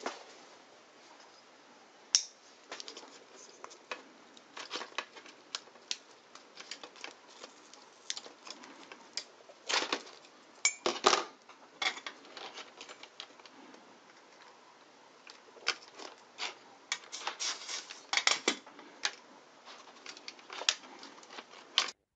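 Irregular small clicks and taps of hand tools and parts being handled while desoldering a cassette recorder's circuit board, with a few sharper clicks about halfway through. The sound cuts off suddenly near the end.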